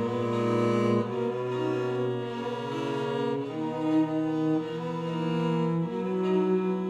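Slow bowed-string music led by cello, with held notes moving to new chords every second or so.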